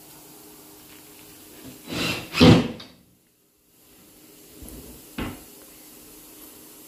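Kitchen cabinet door being worked: a loud double knock of the door closing about two seconds in, then a short sharp click of a door a few seconds later.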